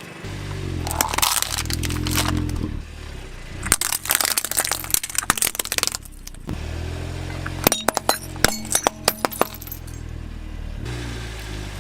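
Car engine running at low speed while a tyre rolls over and crushes crunchy objects: two long bursts of crunching, then a quick run of sharp cracks and snaps near the middle.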